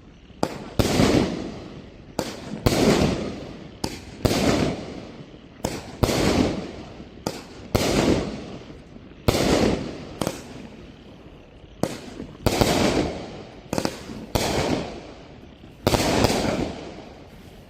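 Winda 'Colonel Popper' P5586 firework firing about ten shots in steady succession, one every second and a half to two seconds. Each shot is a sharp pop followed by about a second of loud, fading noise.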